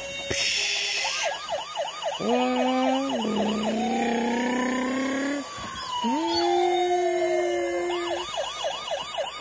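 Toy fire truck with 3D lights playing its loud electronic siren sound effects: rows of quick repeating chirps, held tones and a long falling wail, with a short hiss near the start.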